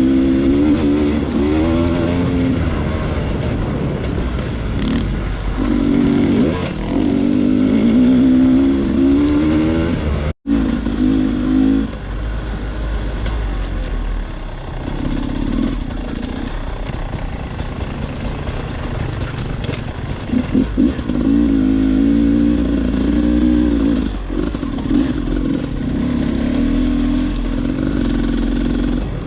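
Dirt bike engine being ridden on a trail, its revs rising and falling again and again as the throttle is worked. The sound cuts out for a split second about ten seconds in.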